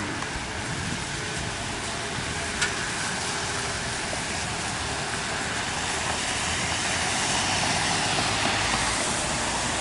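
Car driving on a rain-soaked road: a steady hiss of tyres and road noise, swelling a little in the second half, with one short click near the start.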